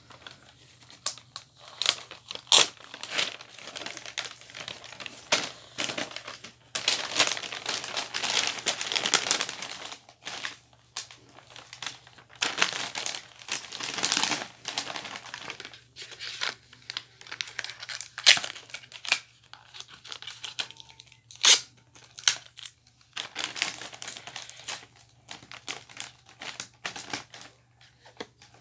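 Wrapping paper rustling and crinkling as a present is folded and wrapped, in stretches that come and go, with sharp snaps now and then.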